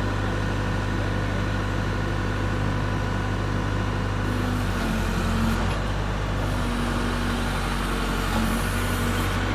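Case Super L backhoe loader's diesel engine running steadily, with a higher hum that comes and goes in the second half as it works.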